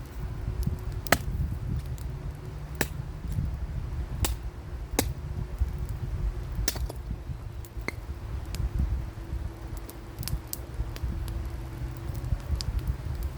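Campfire crackling: burning wood gives sharp, irregular pops about once or twice a second, over a steady low rumble.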